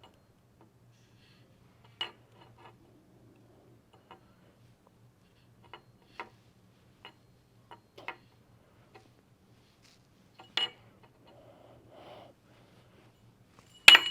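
Small magnets clicking and tapping on a table as they are spun and handled, in scattered, irregular single clicks, with a louder, sharper clink that rings briefly near the end.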